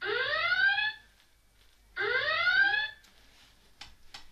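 Red-alert klaxon played through an Amazon Echo Dot speaker: a rising whoop about a second long, repeating every two seconds; two full whoops, with a third starting at the very end.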